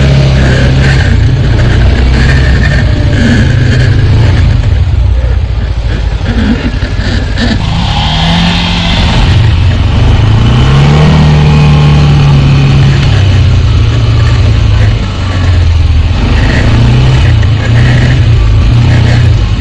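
ATV engine running loud under varying throttle while being ridden, its revs rising and falling and climbing about halfway through.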